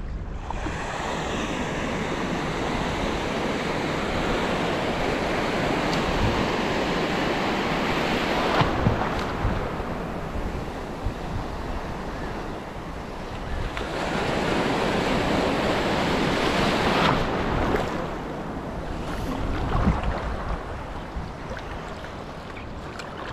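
Shallow surf washing across a reef flat, rising and falling in long surges, with wind rumbling on the microphone.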